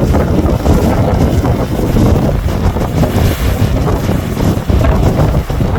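Strong wind buffeting the microphone, a loud low rumble that rises and falls unevenly.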